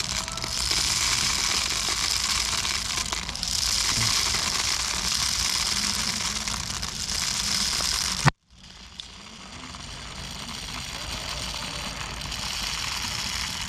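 Steady crackling, rustling noise. A single sharp click about eight seconds in, after which the sound cuts out for a moment and comes back quieter.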